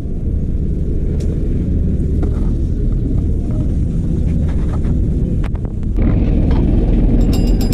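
Bus engine running with a steady low rumble, with a few scattered knocks; it grows louder about six seconds in.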